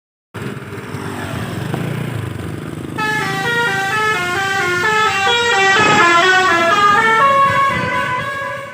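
A bus's musical multi-note horn plays a quick stepping tune of several pitches, starting about three seconds in and fading near the end, over the rumble of the engine.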